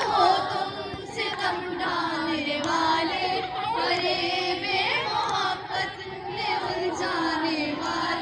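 A crowd of girls' voices singing and calling out together, many voices overlapping, with a held low note running underneath.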